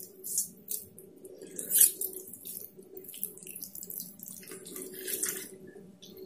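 Water splashing and dripping in irregular bursts as hands squeeze and knead soft vinegar-set cheese curd in a steel bowl of hot water, pressing the water out. This is the working step that makes the curd elastic and stretchy.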